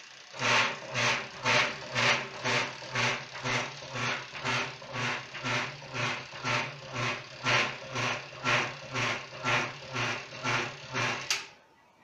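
Koblenz washing machine's motor and belt drive running in a test run with the tub not yet fitted: a steady hum with a regular pulse about twice a second, starting about half a second in and cutting off near the end. The run shows everything in order, with no wire catching and the belt staying on.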